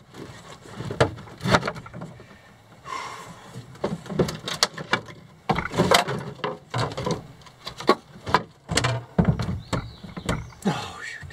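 Handling noise as a battery box and a cut styrofoam block are pushed and wedged into a plastic boat hull's hatch: repeated knocks and scrapes, with a couple of short squeaks of foam rubbing against the hull.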